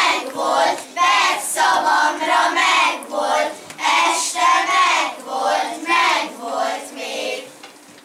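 A group of children chanting a rhyme in unison, in short, loud, rhythmic phrases that stop shortly before the end.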